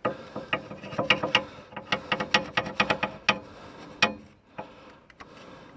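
A screwdriver scraping old gasket off a metal seal mating surface on an excavator engine: a quick, irregular run of sharp scrapes and clicks that thins out about four seconds in.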